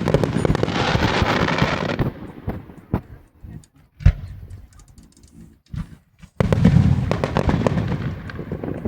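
Fireworks going off: a dense run of rapid crackling pops, then scattered single bangs with one loud report about four seconds in, and a fresh run of rapid crackling from about six and a half seconds.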